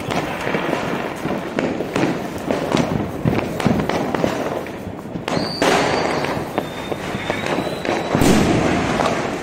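Aerial fireworks and firecrackers going off in a steady run of pops and bangs. A thin high whistle comes in a little past halfway and lasts a couple of seconds, and a louder burst comes near the end.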